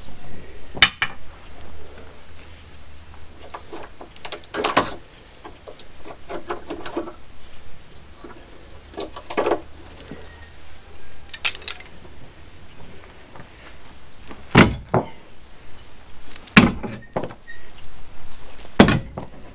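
A long-handled hammer striking nailed-and-screwed wooden legs to knock them off a frame: single sharp blows every few seconds, irregularly spaced, with quieter knocking and handling between.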